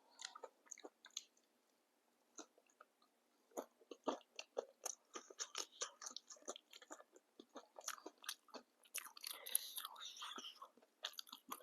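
Close-miked chewing and biting of papdi chaat, with the crisp papdi wafers cracking in quick, irregular clicks. There is a short lull near the start, and the mouth sounds are densest about nine to ten and a half seconds in.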